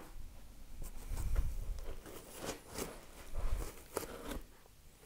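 Handling noise as a small refractor telescope is lifted out of the foam insert of a hard carry case: scattered light clicks and soft bumps, with a few sharper knocks near the end.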